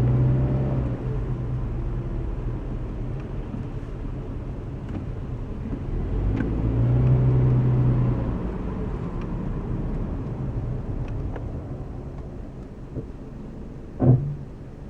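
Scion FR-S's 2.0-litre flat-four engine and road noise heard from inside the cabin while driving off, the engine note rising and falling twice as it pulls away. A short, sharp thump near the end is the loudest moment.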